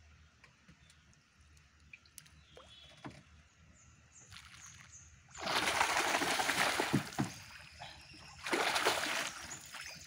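A fish thrashing at the surface in a gill net being hauled in beside a wooden canoe: two loud bursts of splashing, the first starting suddenly about five seconds in and lasting about two seconds, the second shorter near the end, with a few light knocks.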